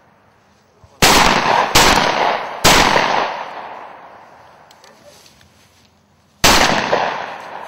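Four shotgun shots fired at quail: three in quick succession less than a second apart, then a fourth about four seconds later, each trailing off over a second or two.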